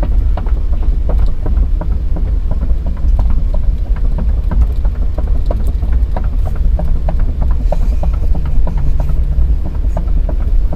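Kobelco SK210 excavator running and travelling slowly: a steady deep engine rumble with scattered clicks and clanks throughout.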